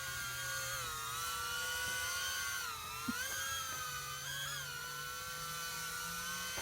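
Small toy quadcopter drone in flight, its propeller motors giving a high whine that wavers up and down in pitch as the throttle changes.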